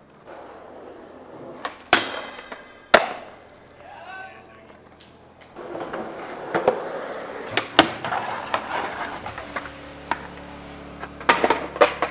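Skateboard on concrete: a few sharp board clacks and impacts, then wheels rolling over the pavement from about halfway through, with more clacks of the board along the way and a burst of them near the end.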